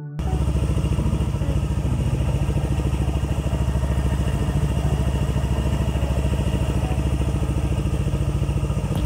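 Motor scooter engine idling steadily with an even pulse.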